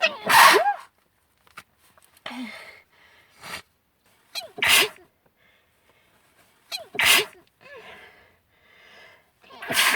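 A person sneezing four times in a row, two to three seconds apart, with quieter breaths between the sneezes. It is an allergic sneezing fit, which she blames on pollen.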